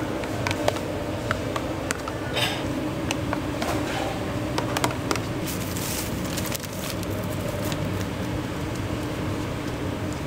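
A plastic rice paddle scrapes and taps in a plastic tub as seasoned sushi rice is mixed, over a steady kitchen ventilation hum. About six seconds in, a plastic zip bag rustles as a sheet of laver is pulled out of it.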